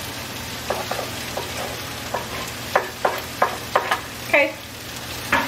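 Chopped vegetables sizzling in a hot skillet as a wooden spoon pushes them off a wooden cutting board into the pan. A run of sharp wooden knocks and scrapes from the spoon against the board falls between about one and four and a half seconds in.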